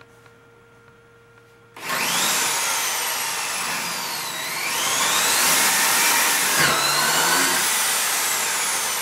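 Cordless drill starting up about two seconds in and running fast, its motor whine dipping and rising again as the speed changes.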